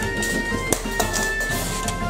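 Background music with held notes, and a couple of sharp taps near the middle.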